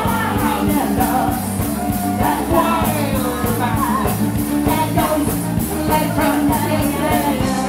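Live folk-rock band playing: a fiddle carries a wavering melody over strummed acoustic guitar and a drum kit keeping a steady fast beat, with singing at times.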